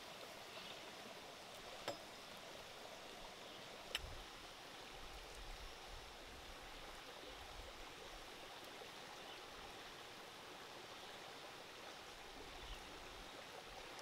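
Faint steady simmering of liquid in an earthenware pot of octopus over a wood fire, with two sharp crackles from the fire about two and four seconds in.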